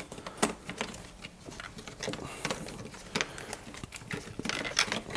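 Strips of birch bark being bent and folded by hand, giving soft rustling and crackling with scattered sharp clicks.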